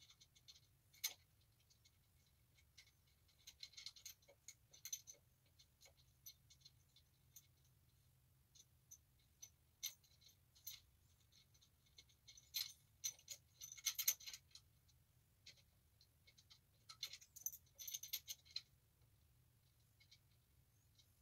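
Light metallic clicks and clinks from a washer and centrifugal clutch parts being handled and fitted by hand onto a mini bike engine's crankshaft. They come in scattered bursts with quiet gaps between.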